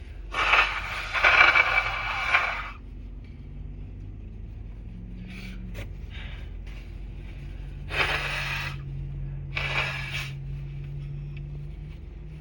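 Noisy nasal breathing from someone with a head cold: a loud rough burst of about two seconds, then a few shorter sniffs.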